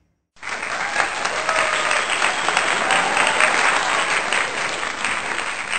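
Loud crowd applause, a stock sound effect that starts suddenly about half a second in over the outro card.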